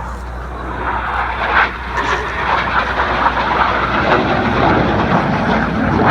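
Jet noise from the Red Arrows' Synchro pair of BAE Hawk T1 trainers with Adour turbofan engines flying a hard turn. A loud rushing sound swells from about a second in and stays loud.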